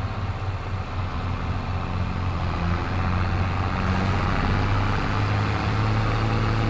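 Farm machinery engine running steadily under way, a low even hum that grows a little louder and fuller about halfway through.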